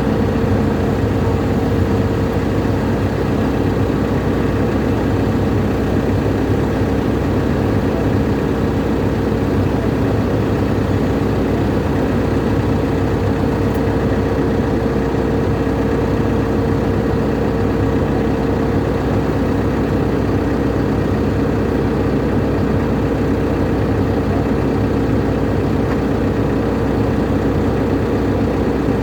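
Excavator's diesel engine running steadily, with a constant whine over the engine hum.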